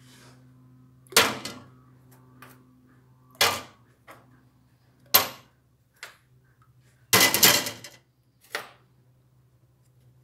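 Small metal parts of a vintage brass tap being picked off a stainless steel bench and dropped one at a time into a tin can of soaking liquid: a sharp knock every one to two seconds, about six in all, with a longer, louder rattling one a little after the middle. A faint steady hum runs underneath.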